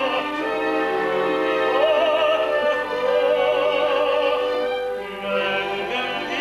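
Operatic soprano singing long held notes with vibrato over an orchestra with strings.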